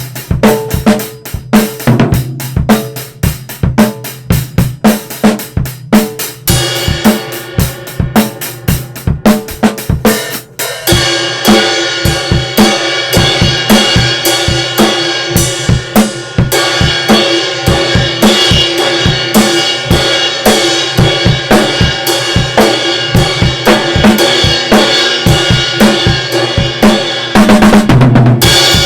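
Acoustic drum kit played loud as a jam, raw through two microphones: kick, snare and hi-hat in a steady groove, with cymbals crashing and washing heavily from about ten seconds in, and a fast fill near the end.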